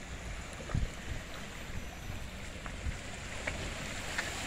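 Wind buffeting the microphone over a steady wash of water running over rocks, with the rush of water growing louder near the end.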